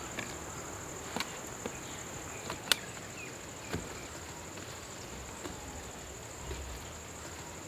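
Steady high-pitched insect chirring, a cricket or cicada drone, with a few sharp clicks scattered through it, the loudest about two and a half seconds in.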